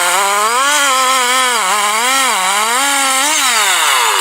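Two-stroke chainsaw running at high revs, its engine pitch wavering up and down. Near the end the pitch falls away steadily.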